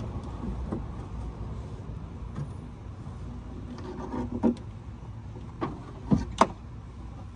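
Semi truck's headlight assembly being pulled free: a few sharp plastic knocks and clunks a little after halfway, the last two loudest, over a steady low vehicle rumble.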